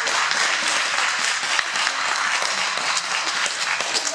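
Audience applauding, a dense, steady patter of hand claps.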